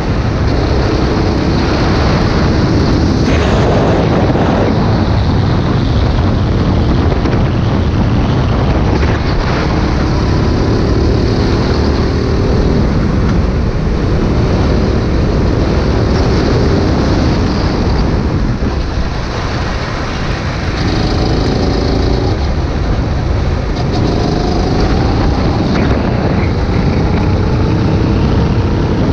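Go-kart engine running hard, its pitch rising again and again as the kart accelerates out of corners and along the straights, over a heavy steady rumble of wind and track noise on the onboard microphone.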